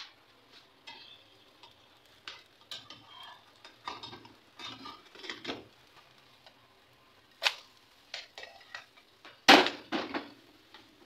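A plastic slotted spatula knocking and scraping against a nonstick frying pan as an omelette fries, in scattered clicks and knocks. The loudest knocks come about seven and a half seconds in and again about nine and a half seconds in.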